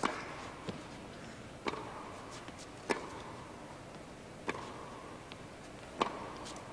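Tennis rally: a ball struck back and forth with rackets, five sharp hits about a second and a half apart, each ringing briefly in the hall, with fainter ball bounces between them.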